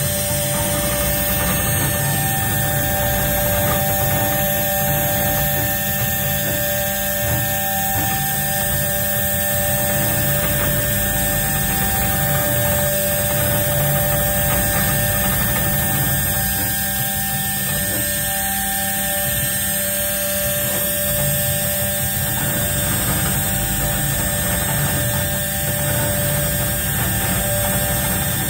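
CNC engraving machine running: a steady whine of several tones over a low hum, with one tone that drops out and comes back several times.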